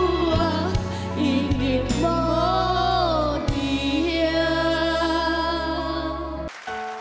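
A woman and a young boy singing a slow Taiwanese Hokkien ballad over instrumental backing. About six and a half seconds in, the band cuts out, leaving soft piano.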